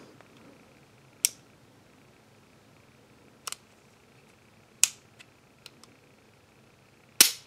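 A handful of sharp, separate metal clicks from a Beretta Model 81 .32 pistol being handled, spaced a second or more apart, the loudest about a second in, near the middle and near the end.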